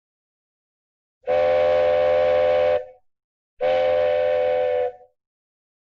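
Two long, steady blasts of a horn sounding a chord of several tones at once. Each blast lasts about a second and a half, and the second begins about a second after the first ends.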